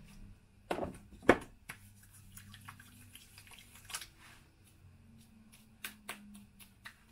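Small handling sounds while applying facial toner: a soft click just under a second in, a sharp knock a little later, then a few lighter clicks and taps as the toner is patted onto the face.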